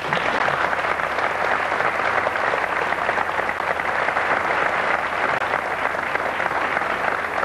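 Studio audience applauding: dense, even clapping that breaks out at once and keeps up.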